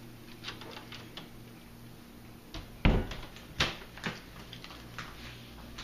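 Footsteps and scattered clicks on a hard floor as someone walks through a small room, with a heavy thump about three seconds in and a sharp knock just after.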